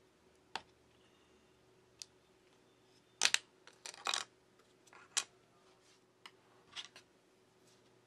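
Sparse small clicks and taps of a smartphone's flex-cable board-to-board connectors being pried off and handled, the loudest a quick pair a little over three seconds in.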